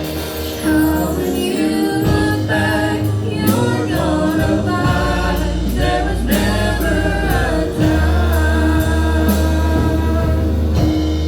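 A band's song with singing: voices over guitar and bass, settling into a long held chord for the last few seconds.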